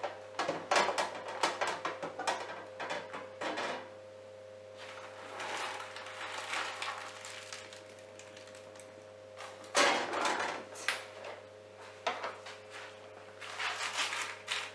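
Hot roasted chopped walnuts being tipped from a metal baking tray and silicone mat onto baking paper: the paper crinkles, the nuts scatter, and the tray knocks, with one louder knock about ten seconds in. A steady low hum runs underneath.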